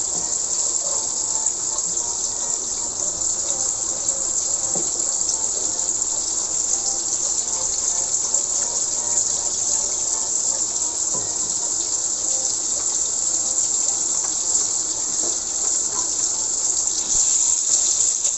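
Masala with fresh yogurt sizzling steadily in hot oil in a karahi, an even hiss: the yogurt's water being fried off on high flame.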